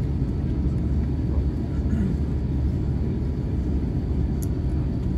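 Steady low rumble inside the cabin of an Airbus A350-900 as it taxis on the ground, its Rolls-Royce Trent XWB engines at idle.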